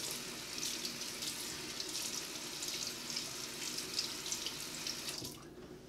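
Semogue Pharos-C3 horsehair shaving brush working wet lather over a bearded face: a wet, crackly swishing that stops near the end.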